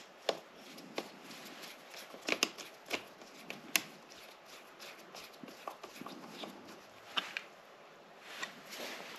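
Irregular light clicks and scrapes of a screwdriver and wire terminals being handled at a motorcycle battery terminal, with a cluster of sharper clicks in the first few seconds and a couple more later.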